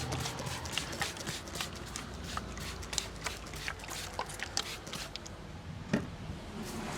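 Hands working on a head in a barber's head massage: many short, irregular soft taps and wet rubbing sounds, with one sharper knock about six seconds in.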